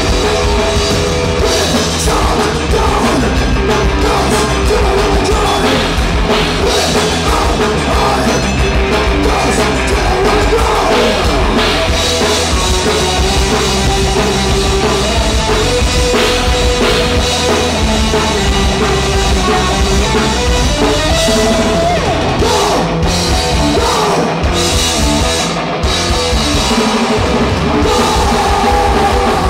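Live punk rock band playing: loud distorted guitars, bass and a driving drum kit, with a singer's voice in parts.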